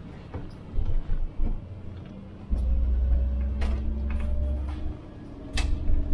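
City bus heard from the driver's cab: low engine and drive rumble that swells in surges, about a second in, from about two and a half to five seconds, and again near the end, with a faint steady whine and a few sharp clicks.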